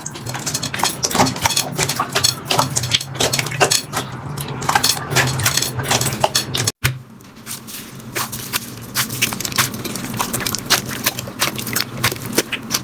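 Slime being squeezed and pressed by hand, giving dense, irregular crackles and pops. The sound breaks off for a moment about seven seconds in, then the crackling goes on.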